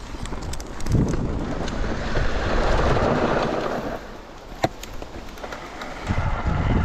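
Wind buffeting the microphone along with rolling noise from an electric mountain bike being ridden, in uneven gusts, with one sharp click about four and a half seconds in.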